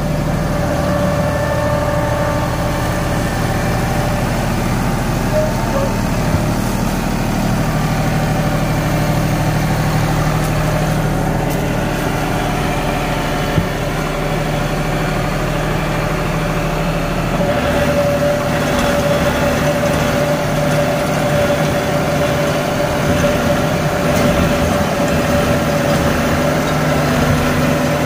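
Deutz-Fahr Agrolux 80 tractor's diesel engine running steadily under load, driving a rotavator that churns banana stalks and soil. The low engine tone shifts about two-thirds of the way through.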